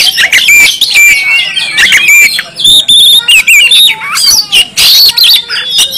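Oriental magpie-robin (kacer) in full, loud song ('gacor'): a rapid, unbroken stream of varied whistles, slurred glides and trills with scratchy notes mixed in.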